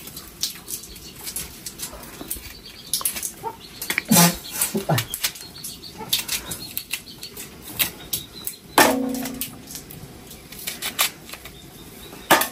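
Kitchen knife peeling and cutting onions by hand: a string of small clicks and papery rustles of onion skin. A brief low-pitched sound comes about nine seconds in.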